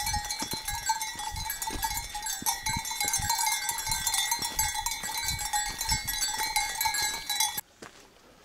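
Many sheep bells ringing and jangling together as a flock of sheep moves along the path, with irregular low thumps underneath. The ringing cuts off suddenly near the end.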